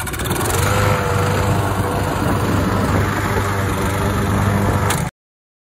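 Walk-behind gasoline lawn mower engine running steadily while the self-propel drive moves the mower forward. It gets a little louder about half a second in and cuts off suddenly near the end.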